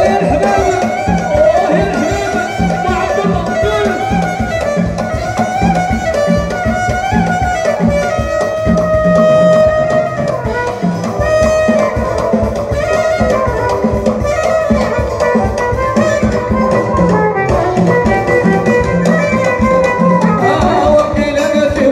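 Live Moroccan chaabi band playing an instrumental passage through a PA: a wavering melodic lead over a steady, driving drum beat.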